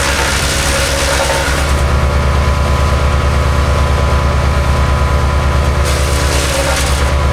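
MechMaxx B200 8-inch wood chipper's engine running steadily. Two bursts of chipping noise come as branches go through: one at the start lasting nearly two seconds, and another about six seconds in.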